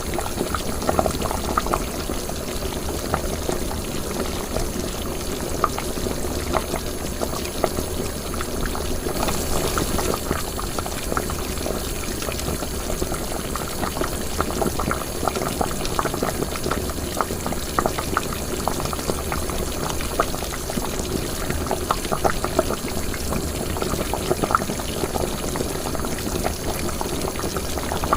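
Liquid boiling in a pot, a steady stream of small bubbles popping irregularly.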